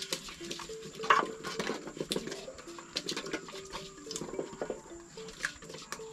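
Wooden spoon stirring a thick mixture in a metal bowl, knocking and scraping against the sides in quick, irregular clicks. Short, faint notes sound in the background.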